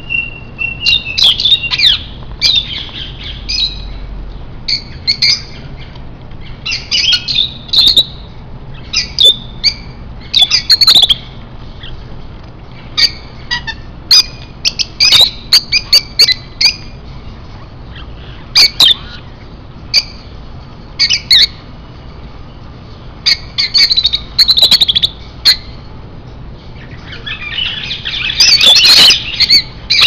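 Caged parrots calling: repeated short, shrill squawks and chirps in bursts, with a dense flurry of calls near the end, over a faint steady low hum.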